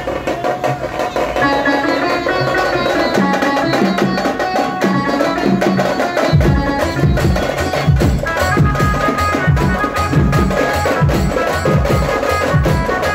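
Loud teenmaar dance music with fast drumming and a melody over it; a heavy bass beat comes in about six seconds in.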